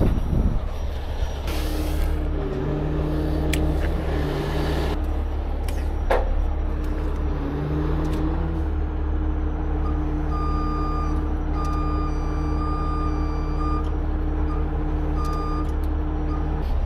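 Heavy rotator tow truck's engine and hydraulics running as the winch control levers are worked, the hum rising in pitch twice as the engine picks up and stopping near the end, with short hisses of air early on and a single knock. From about ten seconds in, a warning beeper sounds in a string of short beeps.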